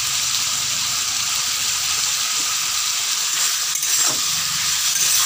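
Ridge gourd and potato pieces sizzling in hot oil in a wok, a steady hiss. About four seconds in, a spatula stirs and scrapes through the vegetables.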